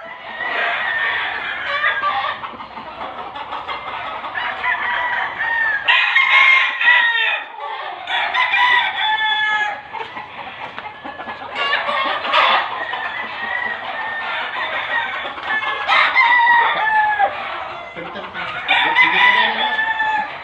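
Gamefowl roosters crowing again and again, one call every few seconds, some overlapping.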